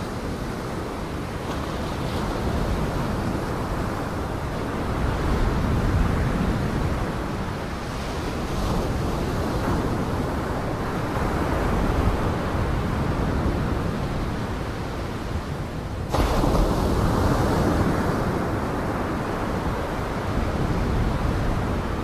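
Waves breaking against a concrete pier: a steady rush of surf that swells and eases every few seconds, jumping suddenly louder about sixteen seconds in.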